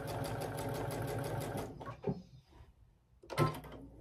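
Domestic sewing machine stitching a seam through two layers of fabric, at an even pace of about seven or eight stitches a second. It stops a little under two seconds in, and a brief louder burst follows after a short pause.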